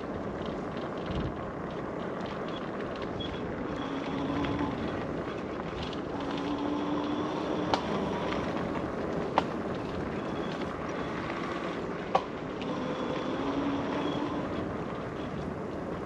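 E-bike ridden along a dirt woodland trail: a steady rush of tyre and wind noise, with a short low tone coming and going several times and three sharp knocks from the bike over the rough ground.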